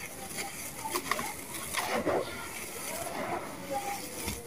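Hands crumbling a lump of dry sand-cement mix, close-miked: a soft gritty crackle with scattered small crunches as the mix breaks apart and falls back into the tub.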